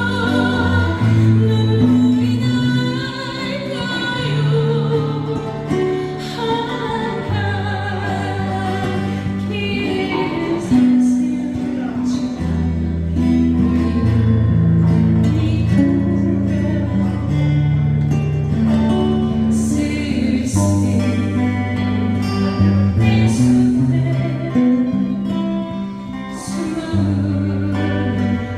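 Music: a woman singing a slow ballad over a backing of guitar and a bass line that moves in long held notes.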